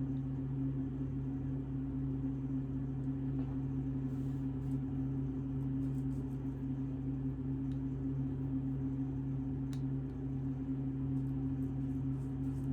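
Steady low hum, unchanging in pitch and level, with a few faint light clicks over it.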